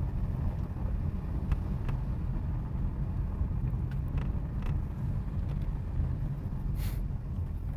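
Car driving: a steady low engine and road rumble, with a few faint clicks and a short hiss about seven seconds in.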